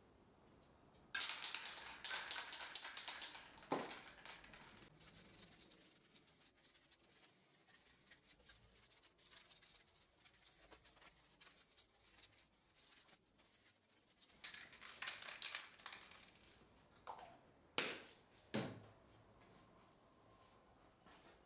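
Aerosol spray-paint can spraying in two bursts of a couple of seconds each, about a second in and again past the middle, with a few sharp knocks near the end.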